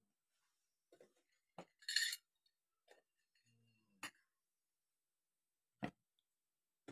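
Small metal offering cups and vessels clinking and knocking as they are set down and moved about on a shrine shelf: about five separate clinks with pauses between them, the loudest about two seconds in.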